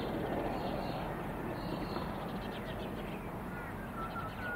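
Birds calling a few times in short arching calls, most of them near the end, over a steady low rumble.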